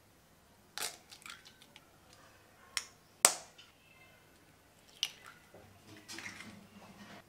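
Eggs being cracked on a stainless steel bowl: a few sharp taps and shell cracks, the loudest about three seconds in with a short metallic ring, then a softer, longer crackle of shell near the end.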